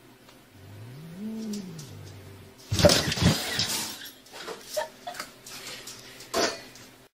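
A domestic cat's drawn-out low yowl, rising and then falling in pitch over about a second and a half, near the start. About three seconds in comes a loud burst of noise with thumps, then a few scattered sharp knocks.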